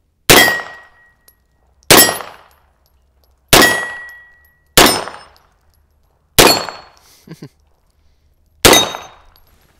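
FEG PA-63 pistol in .32 ACP (7.65 Browning) firing six single shots, spaced unevenly about one and a half to two seconds apart.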